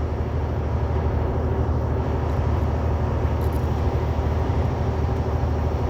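Semi truck driving at highway speed: a steady low rumble of the diesel engine with road noise.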